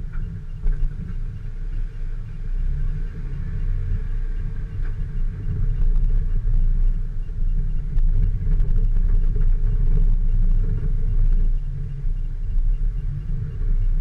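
Off-road vehicle engine running at low speed, a heavy, steady low rumble with scattered small clicks and knocks.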